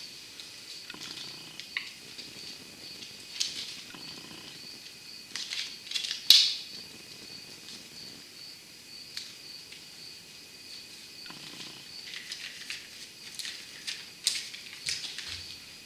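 Plastic-and-foil packet of Stick Tac putty being torn open and handled: scattered crinkles and clicks, with a sharp snap about six seconds in. A faint steady high whine runs underneath.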